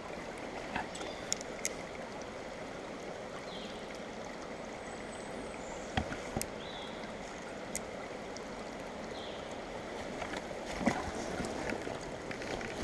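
Small mountain stream flowing steadily over its bed, with a few scattered sharp clicks and knocks and some faint high chirps over the water.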